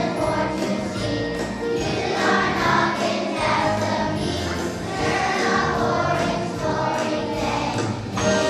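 A children's choir singing a song together over musical accompaniment.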